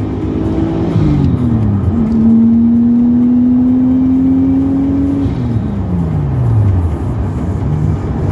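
Nissan R33 Skyline's straight-six engine heard from inside the car on the move. Its note dips briefly about a second in, climbs slowly and steadily for about three seconds, then falls away over about two seconds before steadying at a lower pitch near the end.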